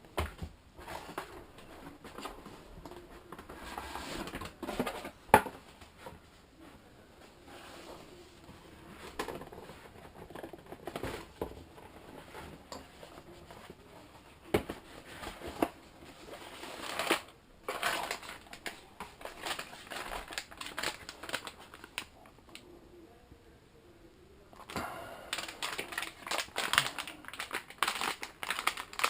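Packaging being handled and unpacked: irregular crinkling and rustling with scattered clicks and taps, one sharp knock about five seconds in, and a quieter lull shortly before the end.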